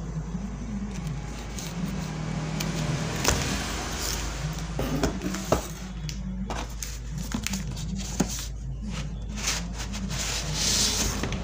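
Cardboard shipping box being cut open and slid off a hard black plastic drill case: rustling and scraping of cardboard, with a few sharp knocks as the plastic case is handled, over a steady low hum.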